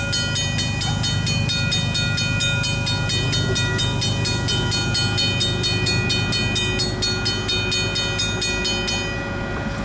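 Railway sound: a steady low rumble under a set of high ringing tones that are struck in a fast, even rhythm, about six times a second. The high ringing cuts off about nine seconds in.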